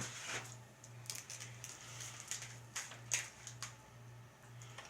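Scattered faint crinkles and clicks of snack packaging being handled, over a steady low hum.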